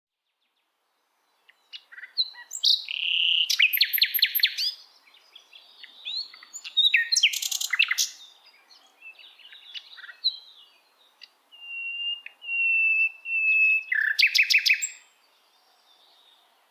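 Forest songbirds singing, beginning about a second and a half in: bursts of rapid trills and chirps, and a thin whistled note repeated a few times in the middle.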